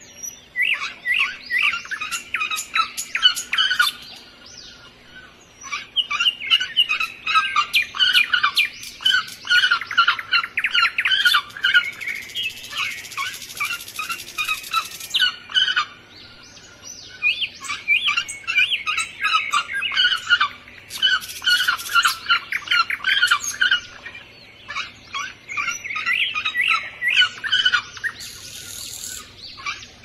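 Small birds chirping in quick runs of high, sharp notes. The chirping comes in bouts a few seconds long, with short quieter pauses between them.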